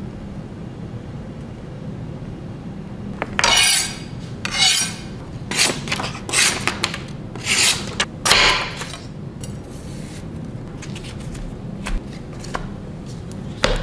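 Paper wrapping sheet handled by hand: about half a dozen rustling, rubbing strokes in quick succession. Later there are a few light ticks and taps as small items are set into a cardboard box.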